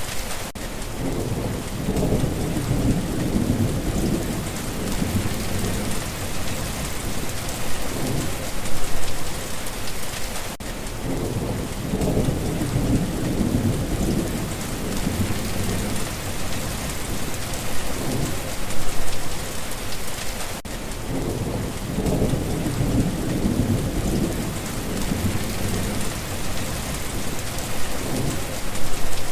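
Steady rain falling, with low rolling thunder rumbling three times, about ten seconds apart.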